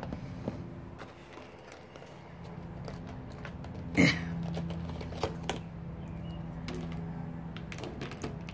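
Plastic ZIG Clean Color markers clicking and rattling against each other as they are sorted and taken out of their box, with one sharper knock about four seconds in.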